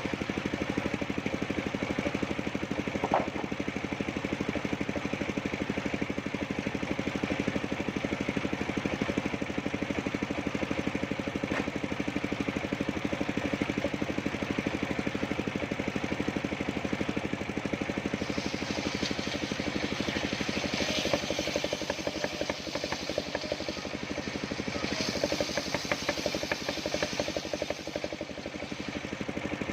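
The engine of a homemade circular sawmill running steadily. From about 18 seconds a rougher hiss joins it, flaring twice, and the engine's level dips and wavers near the end.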